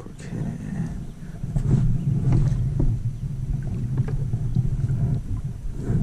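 Kayak drifting on a lake: a steady low rumble with many small knocks and taps against the hull and gear.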